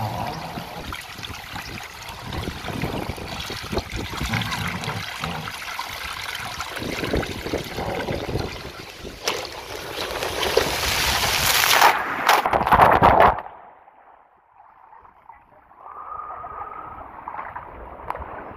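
Rushing water and wind noise on the microphone during a fast ride down an open water slide, building to its loudest before cutting off abruptly about thirteen seconds in. After that, faint water noise in the splash pool.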